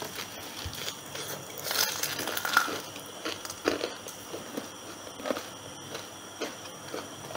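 Bites into crispy-battered fried chicken: a run of loud crunches of the coating about two seconds in, then chewing with a few quieter crunches.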